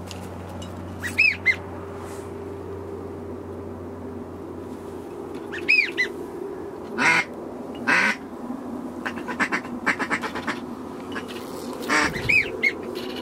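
Ducks calling: short high whistled notes in twos and threes, three times, and a few louder harsh quacks and a quick run of chatter in the middle. A low motor hum underneath fades out in the first few seconds.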